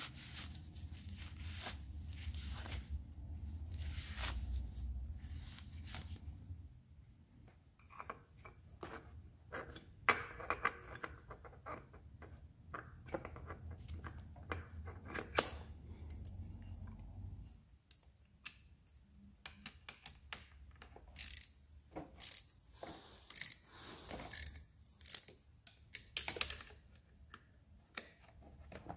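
Hand work on a scooter engine's top end: cloth rubbing and scattered metallic clicks and clinks as the cylinder head is handled and set onto the cylinder studs. The clinks come thicker in the last third. A low steady hum underneath cuts off about two-thirds of the way through.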